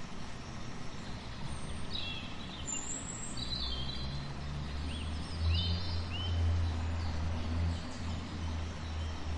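Outdoor nature ambience: a steady hiss with scattered short, high chirps and whistles during the first half, and a low rumble that comes in after a few seconds.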